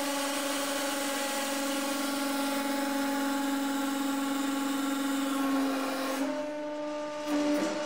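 150-ton hydraulic press running under load as its ram slowly crushes a steel cylinder, building to about 80 tonnes: a steady hum with a hiss over it. About six seconds in, the hum steps up slightly in pitch and the hiss drops away.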